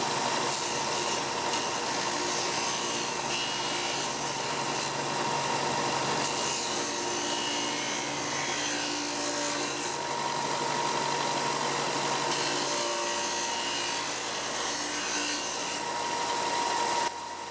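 Ryobi BD4601G belt-and-disc bench sander running while wood is sanded against it: a steady abrasive rubbing over the motor's even whine. The sound drops away sharply about a second before the end.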